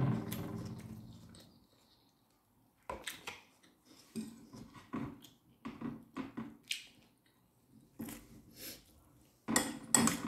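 Hand-eating sounds: chewing and mouth noises, with scattered light clicks and clinks of food, fingers and dishes against a ceramic plate. The loudest cluster of clinks comes near the end.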